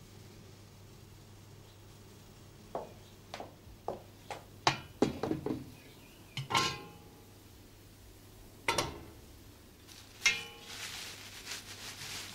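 Metal saucepan, lid and bowl clinking and clanking as nettles are handled and tipped into the pan: a run of light knocks from about three seconds in, with sharper clanks around six and a half, nine and ten seconds. From about ten seconds in comes a steady hiss from the open, steaming pan of boiling water.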